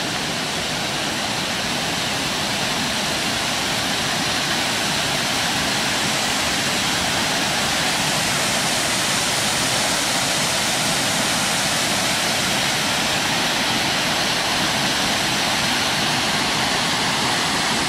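Steady rush of creek water pouring over a low mill dam, growing slightly louder over the first few seconds.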